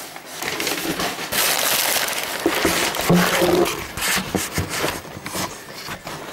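Crumpled packing paper crinkling and rustling as it is handled and pulled out of a cardboard box, with many small crackles.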